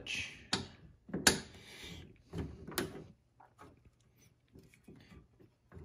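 Clicks and knocks of a steel carriage bolt and bracket being fitted by hand into a lawn tractor's steel frame. Three sharper knocks come in the first three seconds, the loudest about a second in, then only faint small taps.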